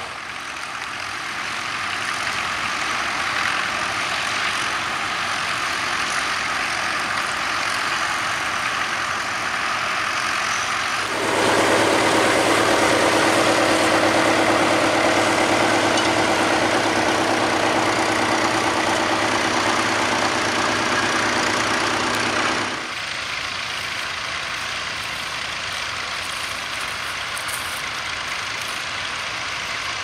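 Vintage farm tractor engines running steadily as they plough a field. The sound jumps to a louder, closer engine with a steady low hum about eleven seconds in, then drops back to more distant engine noise about twenty-three seconds in.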